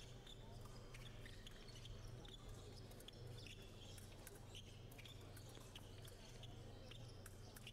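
Near silence: a faint steady low hum with scattered faint, short ticks.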